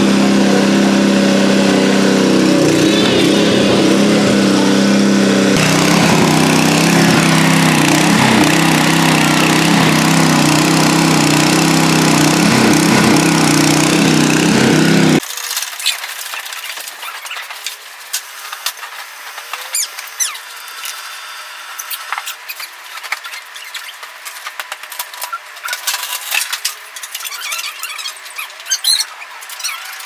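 Honda GX120 single-cylinder engine running a WB20XT water pump at a steady speed. About halfway through, the sound cuts off abruptly, leaving quieter scattered squeaks and clicks.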